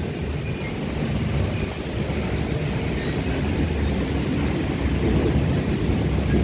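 Old Toshiba-built Cairo Metro Line 1 train running along the track, a steady rumble heard from inside the carriage with its windows open.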